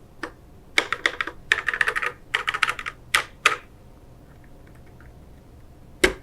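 Keys typed rapidly on a mechanical keyboard: a quick run of sharp keystroke clicks lasting about three seconds, then a single louder keystroke near the end.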